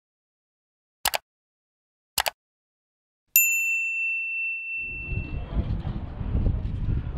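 Two short clicks in silence, then a single bright metallic ding that rings out and fades over about two seconds. Outdoor wind noise comes back in just after it.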